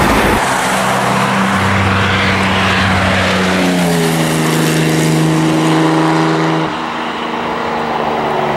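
Porsche 917 replica race car driving past: its engine note is steady on the approach, drops in pitch as it passes about four seconds in, then carries on lower as the car pulls away.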